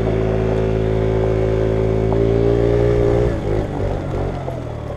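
Lance Cabo 50 scooter's small engine held at high revs under throttle, then easing off and dropping away a little over three seconds in.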